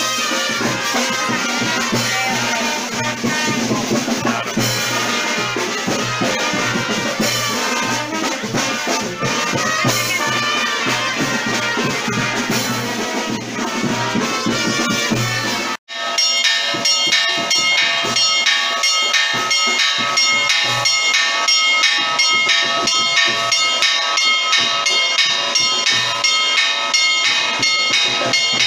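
A brass band with drums playing procession music. About halfway through the sound cuts out for an instant, and the music that follows is brighter, with an even, pulsing rhythm.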